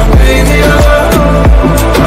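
Music with a steady beat of deep, booming bass drum hits under a sustained melody.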